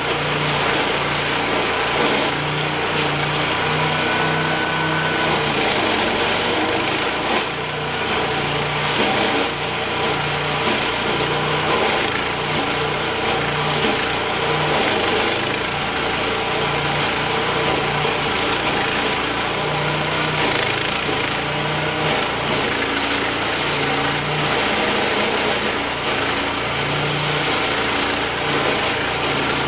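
Stump grinder's gasoline engine running hard as its cutter wheel grinds into a tree stump. The steady engine drone has a low hum that swells and fades every second or two.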